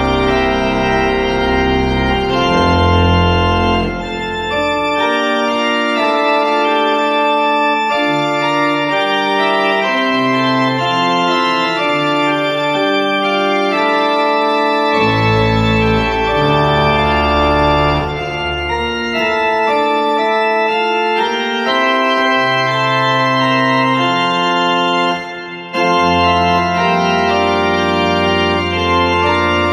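Organ improvisation in F major, in a festive style: full chords held over sustained low bass notes, the harmony changing every second or two, with a short break a little before the end.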